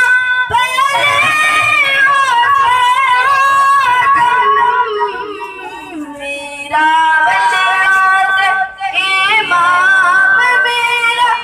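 A boy singing a naat solo, unaccompanied, into a handheld microphone: one high voice drawing out long held notes with ornamented turns, dropping to a lower, softer phrase about halfway through.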